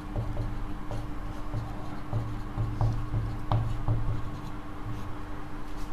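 Marker writing on a whiteboard: short faint strokes and taps of the felt tip as words are written, over a low steady hum.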